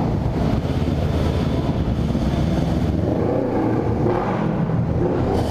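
1998 Honda CB500's parallel-twin engine running steadily as the motorcycle is ridden, its pitch shifting a little.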